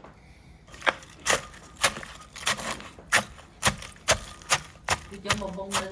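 Knife chopping on a wooden cutting board, a steady run of sharp knocks about two a second, starting about a second in.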